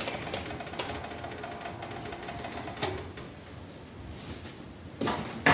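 Light, rapid clicking and tapping of a measuring spoon and spice container as paprika is measured out, with a sharper click about three seconds in and a louder clatter of a utensil near the end.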